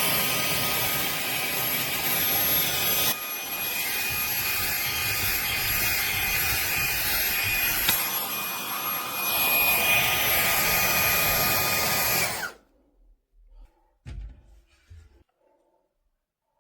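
Fanttik Slim V8 APEX handheld cordless vacuum running steadily with a high motor whine over a rush of air. It switches off about twelve and a half seconds in, the whine dropping away, and a few faint handling knocks follow.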